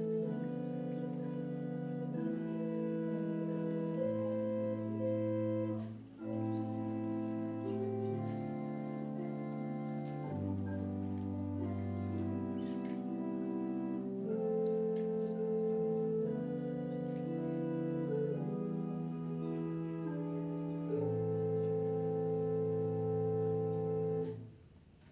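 Church organ playing a slow sequence of sustained chords over a held bass line, with a short break between phrases about six seconds in. It closes on a long final chord that cuts off shortly before the end.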